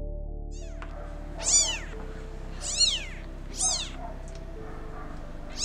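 A newborn tabby kitten mewing: a string of short, high-pitched cries, about one a second, each rising and falling in pitch, over a steady low drone.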